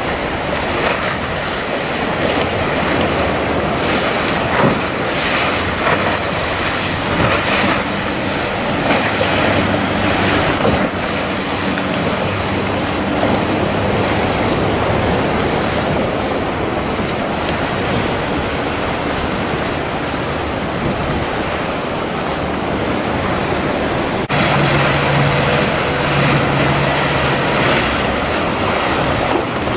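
Choppy sea surf and breaking waves with wind buffeting the microphone, joined at times by the steady hum of small boats' outboard motors. An abrupt change near the end brings the motor hum up louder.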